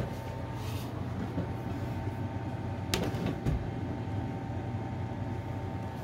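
Steady low hum with a faint steady tone above it, and two short knocks about halfway through.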